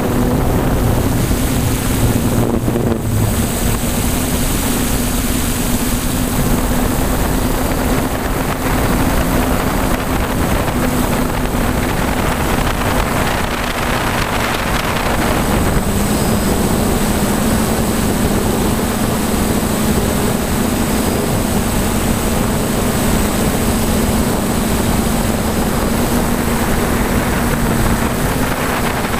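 DJI Flamewheel multicopter's electric motors and propellers humming steadily in flight, heard from the GoPro on board, over a rush of air noise. The hum steps up slightly in pitch about halfway through.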